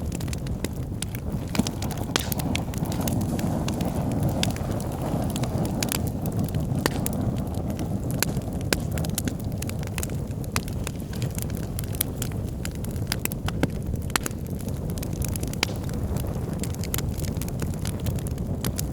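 Wood fire burning in a fireplace: a steady low rumble of flames with frequent sharp, irregular crackles and pops from the burning logs.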